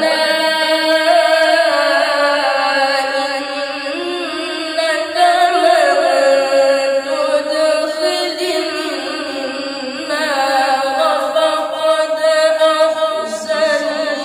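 A young boy's voice chanting Qur'anic tilawah, the melodic style of recitation. He holds long notes with wavering ornaments in one drawn-out phrase that fades near the end.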